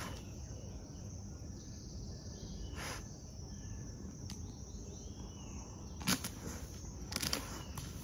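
Outdoor ambience: a steady low background noise with faint, distant bird chirps, broken by a few short rustles or knocks, the loudest just after six seconds in.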